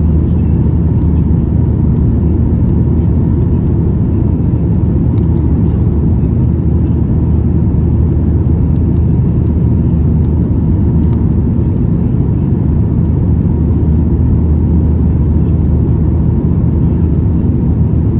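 Steady, loud low drone inside the cabin of a Boeing 737-900ER in flight shortly after takeoff: its CFM56-7B engines and the airflow over the fuselage, heard from a window seat over the wing.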